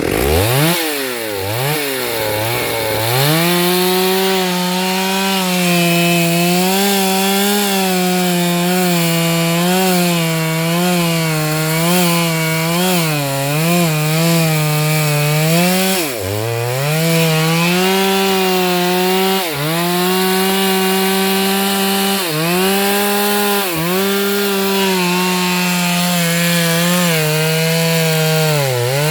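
Stihl MS 382 two-stroke chainsaw revving up and then cutting through a sengon log under load. The engine note wavers as the chain bites and dips briefly several times in the second half.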